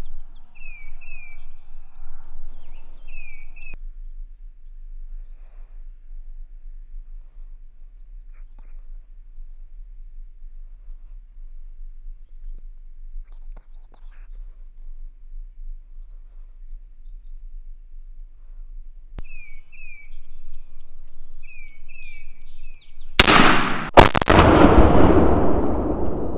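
Small birds chirping in repeated short runs of notes, then near the end a single loud shotgun shot that rings out and dies away over a couple of seconds.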